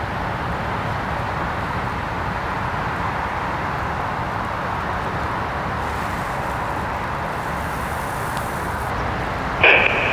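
Steady outdoor rumble and hiss of the kind heard at an airfield. Near the end an air traffic control radio transmission cuts in suddenly with a loud squelch tone.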